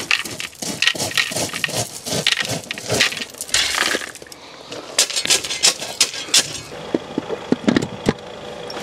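Loose gravel crunching and stones clinking in irregular clicks around a plastic earth-rod pit being bedded into a gravel path, with a longer scraping crunch about three and a half seconds in.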